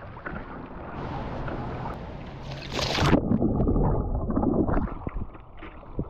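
Choppy water sloshing and splashing against a sea kayak's hull as it is paddled, with one loud splash about two and a half seconds in.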